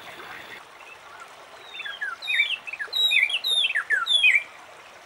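A bird singing a quick run of clear, falling whistled notes for about two and a half seconds, starting about two seconds in, over a faint steady hiss.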